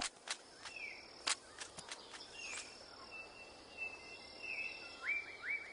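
Rainforest sounds: a steady, high insect drone with scattered bird calls. These are short falling chirps and held whistled notes, with a quick run of three rising notes near the end. Several sharp clicks come in the first two seconds.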